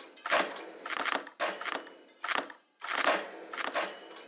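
Sound-art soundtrack of sharp, noisy percussive hits, one about every half second at an uneven pace, each fading quickly, over faint steady tones.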